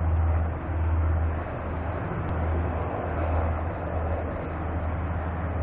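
Several circling helicopters, which the uploader takes for Apaches, heard as a steady low rotor and engine drone that swells and fades slightly.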